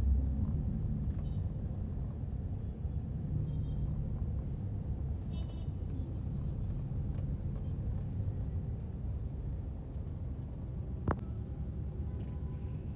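Steady low rumble of a car's engine and road traffic heard from inside the car's cabin, with one sharp click about eleven seconds in.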